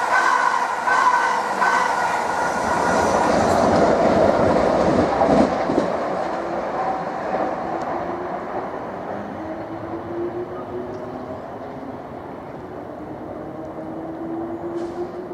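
South West Trains Class 444 Desiro electric trains on the line at the station. Loud wheel-and-rail noise with steady high whines fades over the first half. After that a quieter traction-motor whine slowly rises in pitch as a train picks up speed.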